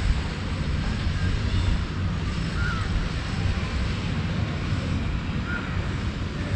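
Steady low rumble of city traffic mixed with wind buffeting the microphone, with a few faint, short bird chirps over it.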